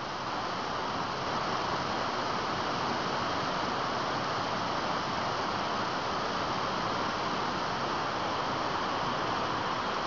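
Waterfall rushing steadily: an unbroken hiss and roar of falling water.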